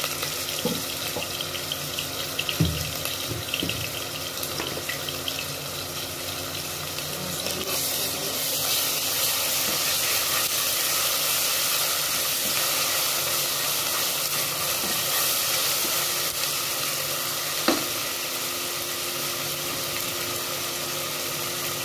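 Sliced onions and ginger-garlic paste sizzling in hot oil in a pot, a steady frying hiss that grows louder from about eight seconds in. A couple of sharp knocks, one early and one near the end.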